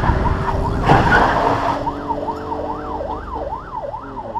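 Emergency-vehicle siren over the rumble of a car on the road, its pitch sweeping rapidly up and down, then widening into broader, slightly slower sweeps about two seconds in. There is a short knock about a second in, and the sound cuts off abruptly at the end.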